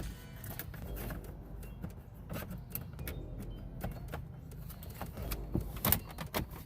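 Scattered light clicks and knocks from handling a manual gear shifter as its throw is checked, over a low steady hum.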